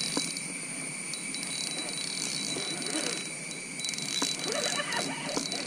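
Fishing reel being wound in short runs of rapid light ticking as a hooked carp is played, over a steady high-pitched insect drone.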